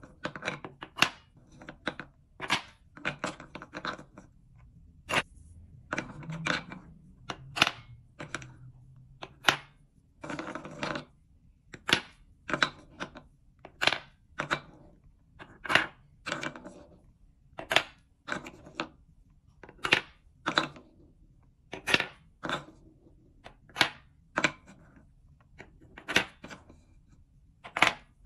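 Painted wooden balls clacking against a wooden scoop, bowl and cups as they are picked up and dropped into the cups one at a time. It is a steady run of sharp wooden clacks, about one a second, with a few longer rattles as the balls knock together.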